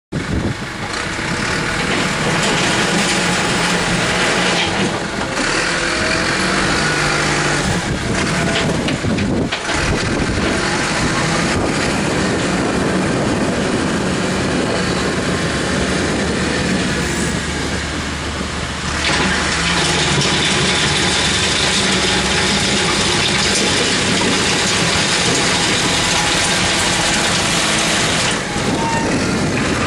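Backhoe's diesel engine running under load, its note shifting several times as the machine works.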